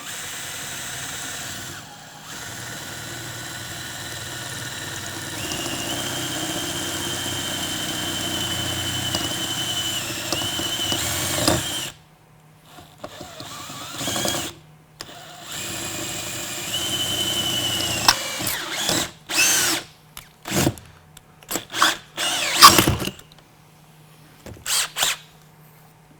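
Electric drill drilling out the pop rivets that hold a shipping-case latch, run slowly and steadily for about twelve seconds with a high whine as the bit cuts. It then stops suddenly and goes on in short, louder stop-start bursts.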